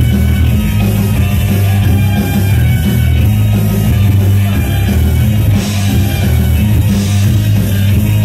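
Loud dance music played over a sonidero sound system, with a heavy, steady bass line.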